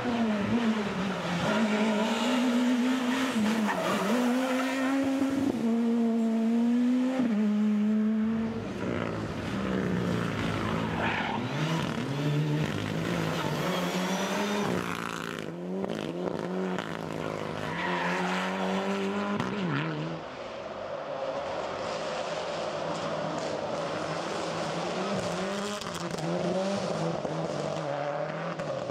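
Rally cars at speed on special stages, their engines revving up and dropping back again and again in a string of short clips, one of them a Mitsubishi Lancer Evolution.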